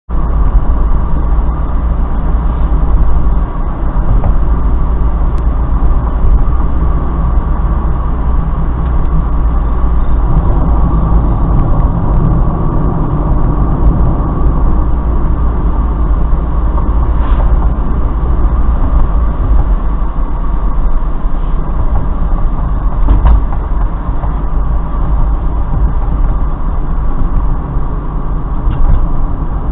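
Mazda Roadster's four-cylinder engine and tyre and road noise at a steady cruise of about 45–50 km/h, heard from inside the cabin through the dashcam's microphone. The sound is loud and steady, with most of it low down.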